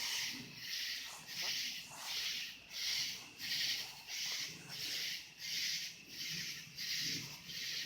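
Night insects calling in a steady, even rhythm of short high buzzing pulses, about one and a half a second.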